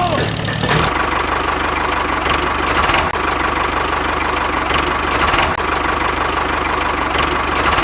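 A small motor running steadily, with a constant whine and a fast, even low pulse.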